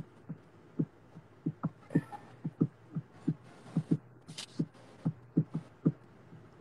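Soft, breathy chuckling: a string of short low 'huh' pulses at an uneven pace, with a few breathy exhales.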